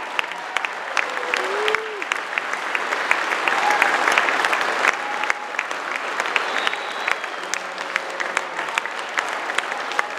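Audience applauding steadily, a dense patter of many hands clapping, with a few voices calling out over it.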